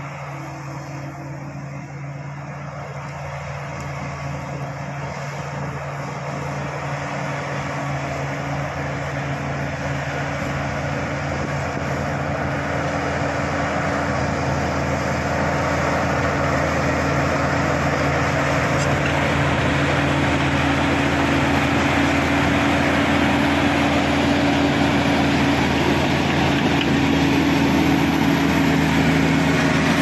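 Shantui crawler bulldozer's diesel engine running under load as it pushes a mound of soil with its blade, growing steadily louder as the machine comes closer.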